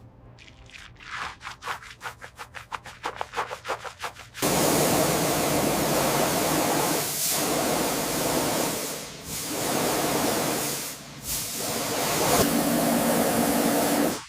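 Pressure washer spraying the car during a snow-foam wash: a quick run of short spurts, about six a second, then from about four seconds in a steady hiss of spray, broken three times by brief dips.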